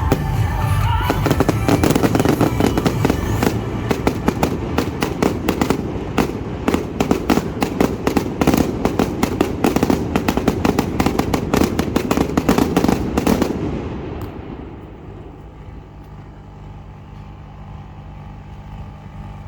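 Fireworks finale barrage: a dense, rapid run of crackling bursts and reports, with show music underneath. The barrage stops about two-thirds of the way through, leaving a quieter steady low hum.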